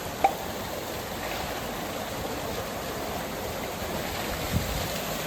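Steady rushing water of the 230-foot Carney Springs Waterfall, running after heavy rain. A sharp click comes just after the start, and a brief low thump near the end.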